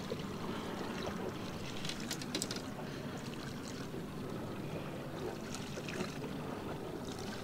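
Water lapping and splashing against the hull of a small boat drifting in choppy water, with a few light clicks and knocks about two seconds in.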